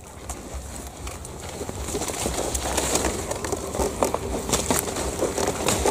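A dove cooing faintly, a low steady note in the second half, over rustling and small clicks of handling gear.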